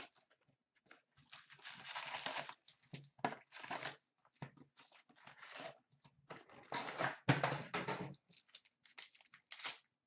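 Cardboard hobby box of hockey cards being opened by hand and its foil card packs taken out: irregular rustling and scraping of cardboard, paper and wrappers, loudest a little past halfway.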